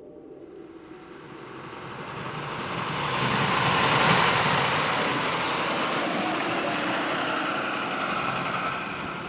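A road vehicle passing close by: a rush of tyre and engine noise that swells over a few seconds, peaks about four seconds in, then eases off slowly.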